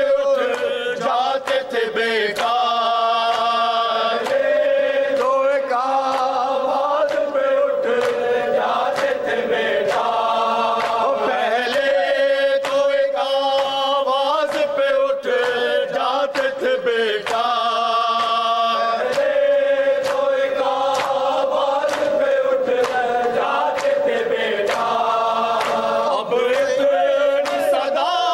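Group of men chanting an Urdu noha in unison without instruments, holding long notes, with repeated slaps of hands beating on chests (matam) through the chant.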